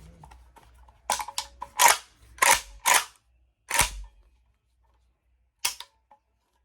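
AK pistol being cleared by hand: sharp metallic clacks of the magazine coming out and the charging handle and bolt being worked, several in quick succession, then one more after a pause near the end.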